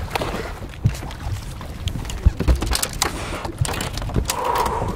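A hooked bass splashing and thrashing at the surface right beside a boat, then swung aboard on the rod near the end, with scattered knocks and clunks and a steady low wind rumble.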